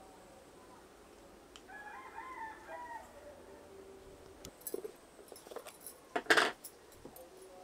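A rooster crowing once, one drawn-out call of about a second and a half, starting about a second and a half in. After it come light clinks, then a louder short clatter about six seconds in, from a spoon and a clay spice pot knocking against an earthenware bowl as spice is tipped in.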